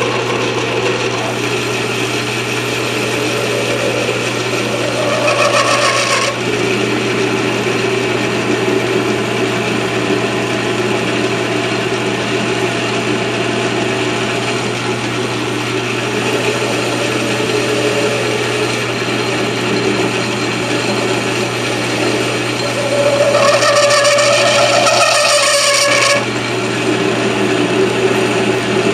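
South Bend 13-inch lathe running with a steady hum while a turning tool cuts a shallow oil relief into a half-inch 1018 steel shaft. Twice, about five seconds in for a second or so and again near the end for about three seconds, the cut gets louder with a higher ringing tone.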